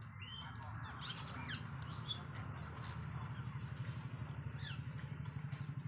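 Small birds chirping in the background, short rising and falling calls. Under them, from about halfway in, a low, fast, even pulsing is the loudest sound.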